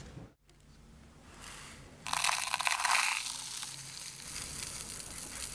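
Fine dry sand pouring from a plastic container into a thin plastic cup: a grainy hiss that starts suddenly about two seconds in, strongest for its first second and then easing off a little as the pour goes on.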